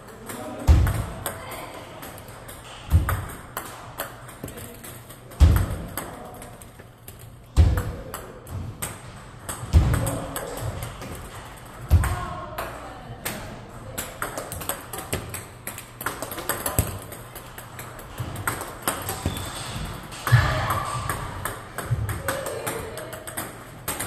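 Table tennis ball clicking sharply and repeatedly off bat and table during serve practice, over background music, with low thuds about every two seconds.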